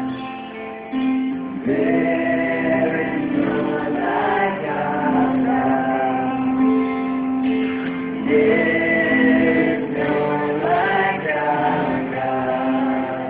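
Music with several voices singing.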